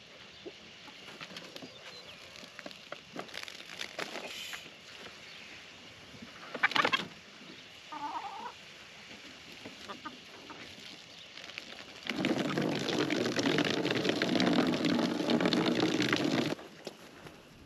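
Chickens clucking as they forage, with a single sharp knock about seven seconds in. Near the end a louder patch of dense, rushing noise starts suddenly, runs about four seconds, and cuts off.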